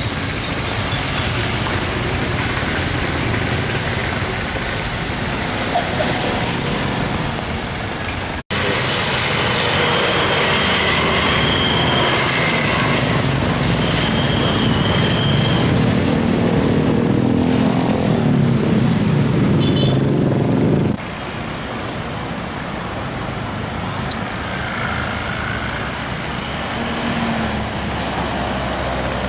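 Passing road traffic heard from the roadside: car and motorcycle engines with tyre noise on a wet road. The sound changes abruptly twice, with a louder stretch of heavy, low engine noise in the middle.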